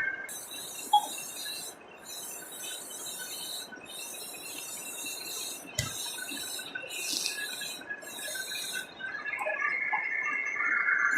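A lathe spinning a workpiece while a tool or abrasive is pressed against it in repeated passes, each a second or two long with short breaks, over a faint steady squeal.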